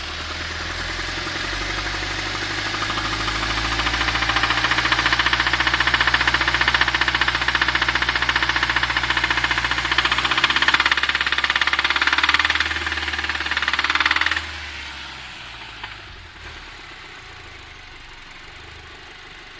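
Audi TT Mk2's 2.0 TFSI (BWA) turbocharged four-cylinder engine revved up and held at raised speed with a fast, even knock running through it, then dropping back toward idle about fourteen seconds in. The source of the knock is unknown.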